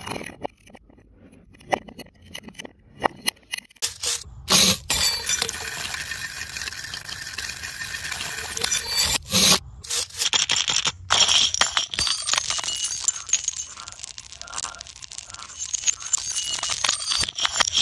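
Glass breaking and being crushed: a few light clicks, then from about four seconds in two long stretches of dense crunching and crackling, each opening with a heavy crash, with shards scraping and clinking.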